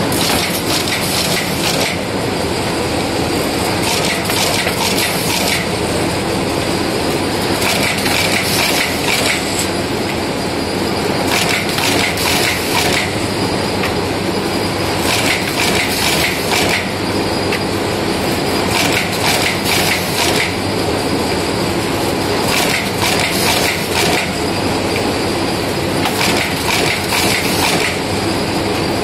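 Chetan automatic notebook wire-stitching and folding machine running with a steady mechanical clatter. About every three to four seconds comes a short cluster of sharp stitching strokes as the stitching head drives wire stitches into a notebook.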